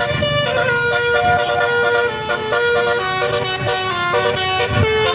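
Basuri musical air horn playing a tune: sustained horn notes stepping up and down in pitch, several tones sounding together as chords.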